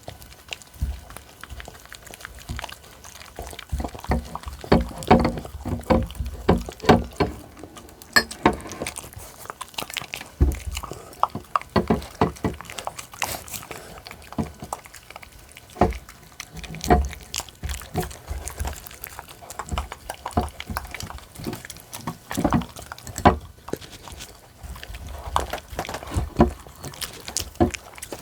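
Small dogs eating soft, wet cooked food: a dense, irregular run of wet smacking and chewing clicks with occasional low bumps.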